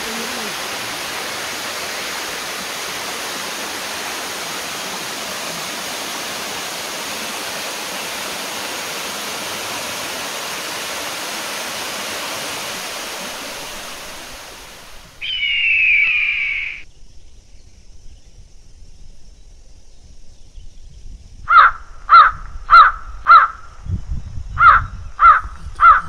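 Waterfall and stream rushing steadily, cut off abruptly about fifteen seconds in. A brief high warbling call follows. Near the end a crow caws loudly in two runs of about four caws each.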